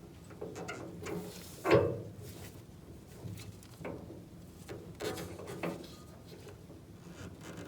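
Light knocks and clicks of metal hardware being handled as a sway bar bolt and its parts are lined up and fitted by hand, with one sharper knock about two seconds in.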